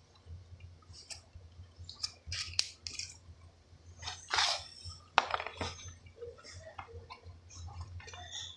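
Glue-and-detergent slime being mixed in a container: scattered clinks and clicks of a utensil against the container, with a couple of sharper knocks and soft rustling between them.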